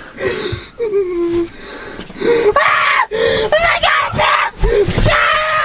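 A person's voice wailing and screaming in several long, drawn-out cries with a wavering pitch, loudest in the second half.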